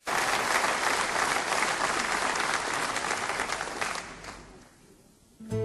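Audience applauding, the clapping dying away after about four seconds. Just before the end an acoustic guitar begins playing.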